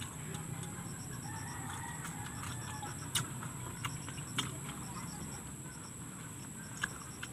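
Chickens calling in the background, one call lasting about two seconds starting about a second in, over a steady high hum. A few sharp clicks of chewing and mouth sounds from eating close to the microphone come later.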